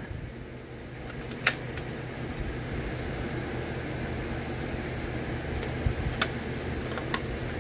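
Small hinged metal tin of drill bits being opened and shut by hand: a sharp metal click about a second and a half in and two more near the end, over a steady low hum.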